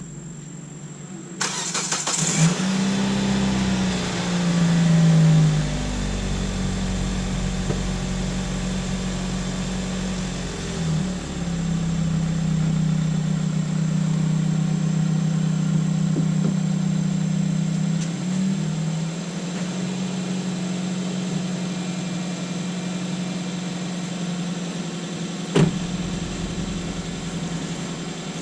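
Kia Spectra's four-cylinder engine cranks and catches about a second in. It flares up briefly a few seconds later, then settles into a steady idle, its first run after the oil change while the fresh oil fills the new filter. A single sharp knock comes near the end.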